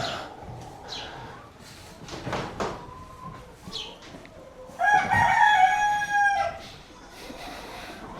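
A rooster crows once, a single held call of about a second and a half in the middle, over faint rustling and light knocks.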